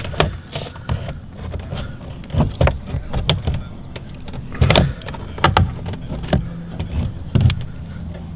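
Plastic trim of a 2020 Mitsubishi Eclipse Cross rear door panel being pried and pulled against its retaining clips, with hands and a plastic panel popper. It gives irregular sharp plastic clicks and knocks, about ten of them, the loudest about four and a half seconds in.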